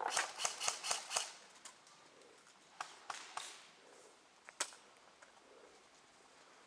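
Airsoft guns firing: a quick string of about six shots in the first second or so, then a few single shots around three and four and a half seconds in.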